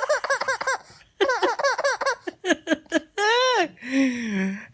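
Baby laughing hard in runs of quick, high-pitched giggles with short breaks between them, and one long squealing laugh about three seconds in.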